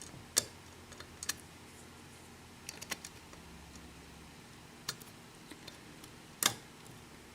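Faint, scattered metallic clicks of a lock pick working the pin tumblers of a Sargent 5-pin padlock during single-pin picking, with the loudest click about six and a half seconds in.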